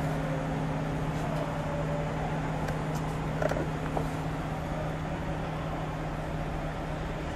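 A steady low hum of two even tones over a constant background hiss, with a few faint light clicks about three and a half seconds in.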